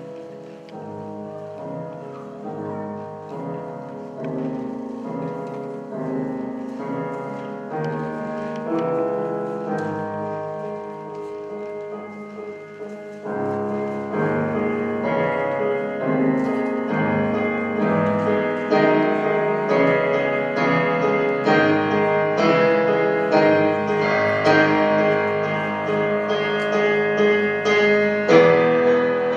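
Piano music growing gradually louder, with a fuller, denser passage coming in about halfway through.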